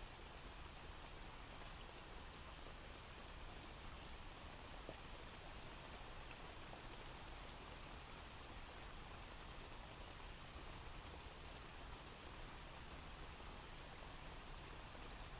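Faint, steady rain with scattered drops: a recorded rain ambience sound effect.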